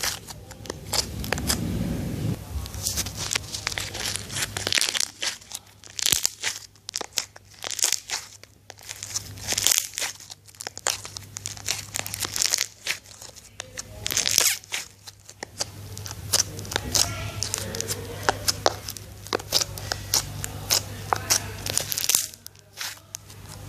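Black glue-based slime being squeezed and stretched by hand, giving irregular sharp clicks, pops and crackles as air pockets burst.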